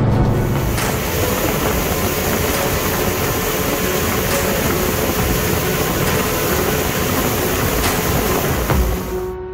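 Steady loud rush of wind and water noise with an outboard motor running as a center-console boat speeds past on the plane. It cuts off suddenly near the end.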